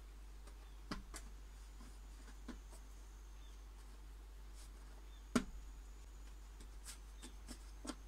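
Hands shaping bread dough on a metal tray: a few soft taps and clicks, the sharpest about five seconds in, over a faint steady low hum.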